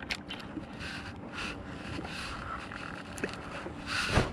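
Wind on the microphone and water noise around a small fishing boat at rest on calm sea, with a few light knocks and a louder bump about four seconds in.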